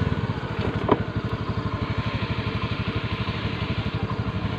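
Motorcycle engine running at low revs, with a steady, evenly pulsing putter as the bike is ridden slowly over a rough dirt road.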